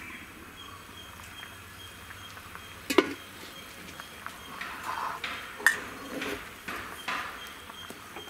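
A metal lid clanks sharply once as it is taken off a pot about three seconds in, then a pot of vegetable sambar bubbles at a rolling boil, with a couple of small metallic knocks.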